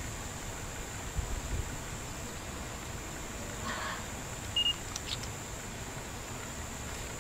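Quiet outdoor background: a steady thin high-pitched whine, a low rumble, and one short high beep-like chirp about two-thirds of the way through.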